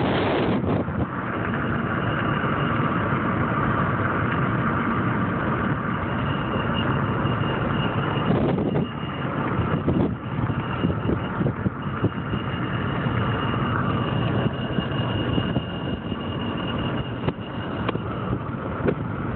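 High-pitched squeak from a car's passenger-side front wheel area: one steady thin tone that fades in and out over the car's running noise.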